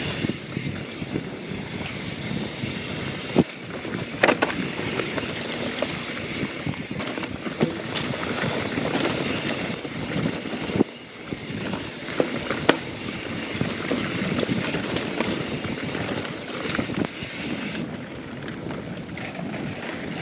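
Mountain bike, a YT Jeffsy 27, descending a fast dirt trail: a continuous rush of tyres and wind, with a handful of sharp knocks and clatters as the bike hits rocks and lands off rollers.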